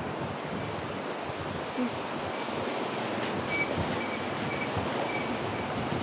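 Steady rush of river water flowing under a suspension footbridge. In the second half, a faint high chirp repeats about twice a second.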